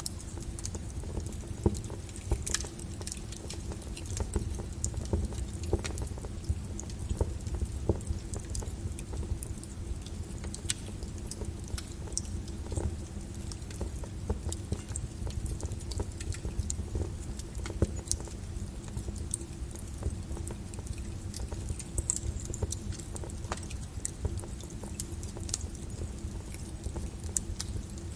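Wood fire crackling and popping in irregular sharp snaps, layered over rain pattering on a window, with a steady low rumble underneath.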